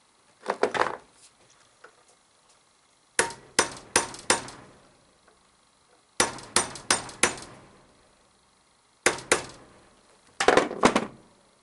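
Hammer striking a pin punch to drive the retaining pin through a Chevy HEI distributor's drive gear and shaft: sharp metal strikes in about five quick bursts of two to five blows, with pauses between.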